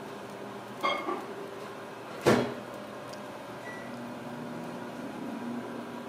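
A steady low hum with two knocks over it: a short knock with a brief ringing tail about a second in, and a louder, sharp knock a little after two seconds.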